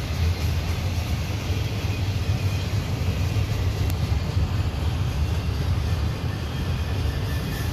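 Double-stack intermodal freight cars rolling past at close range: a steady, loud rumble of steel wheels on the rails.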